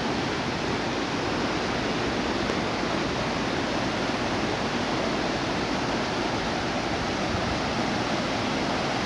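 Fast, turbulent floodwater rushing through a swollen river channel and across a road, a steady, even rushing with no let-up.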